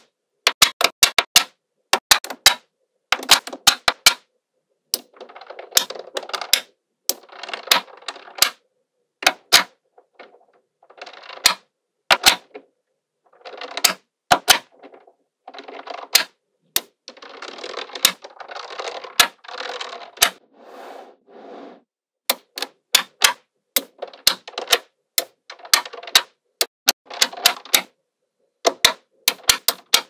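Small magnetic balls snapping together in sharp, irregular clusters of clicks as slabs of them are pressed onto a layered magnetic-ball build. Through the middle of the stretch there are longer spells of softer, dense rattling as the balls shift and roll against each other.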